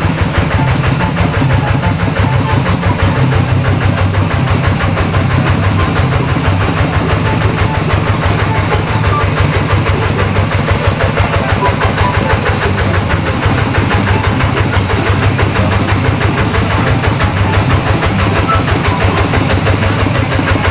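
Engine of a rice-field machine running steadily with an even, fast chugging pulse.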